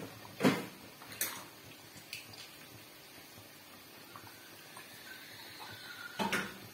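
Rice-flour dough balls deep-frying in a wok of oil, with a faint steady sizzle. A few sharp knocks cut through it: the loudest about half a second in, and another near the end.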